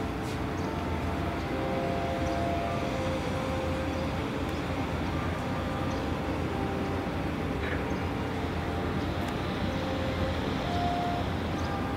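A gut ship's deck crane runs steadily, its engine and winches humming low with changing whine tones as it swings the clamshell grab. About ten seconds in, a hiss rises as the opened grab pours granular bulk cargo onto the quay pile.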